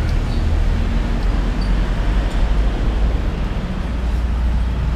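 Steady low rumble of road traffic passing close by.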